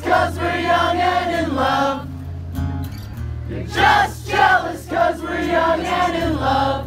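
Live acoustic guitar chords with many voices singing along, a crowd singalong heard from inside the audience.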